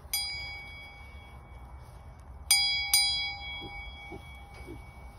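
A small bell on a sheep's collar clanks three times as the sheep moves at the fence: once at the very start, then twice about half a second apart midway. Each strike rings out and fades. Wind rumbles on the microphone underneath.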